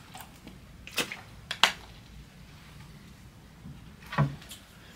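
A plastic water bottle handled during a drink: two sharp plastic clicks about a second in, half a second apart, and a short duller knock a little after four seconds, over quiet room tone.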